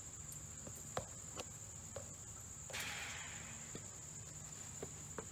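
Quiet room tone carrying a steady high-pitched whine and a low hum, with a few faint clicks and a brief soft rustle about three seconds in.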